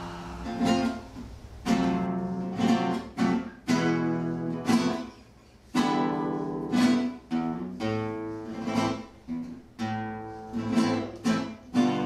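Background music on acoustic guitar: chords strummed and plucked one after another, each ringing out and fading before the next.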